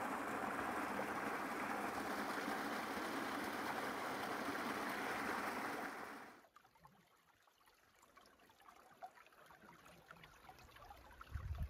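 Small mountain stream splashing down a rocky channel into a pool: a steady rush of falling water that cuts off abruptly about six seconds in, leaving it much quieter.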